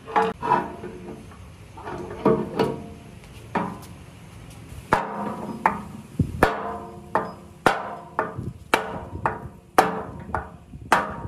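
Metal struck over and over with a hammer, each blow ringing briefly. The blows come at an uneven pace, sparse at first and then about two a second from about halfway through.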